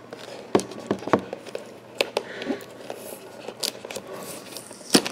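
Stiff clear plastic blister packaging being handled and pulled open, giving a string of irregular sharp clicks and crinkles.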